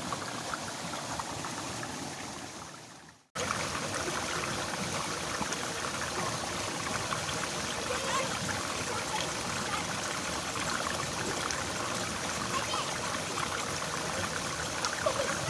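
Steady rush of water flowing along a small irrigation ditch. It fades away about three seconds in, then comes back abruptly and runs on evenly.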